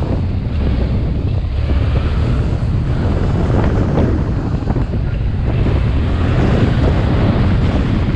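Steady wind rush on the microphone of a moving motorcycle, with the motorcycle's engine running underneath.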